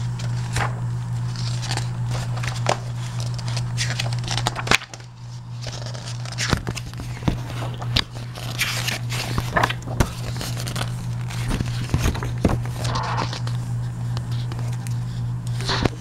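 Paper catalog pages being handled and turned: scattered rustles, scrapes and clicks, with a steady low hum underneath.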